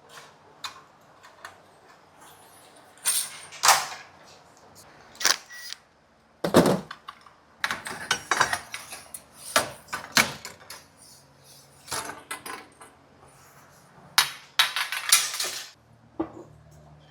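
Irregular knocks, clinks and short rattles of hand work on old electrical fittings, as outlets and wiring are pulled from the wall, with a heavier thud about six and a half seconds in.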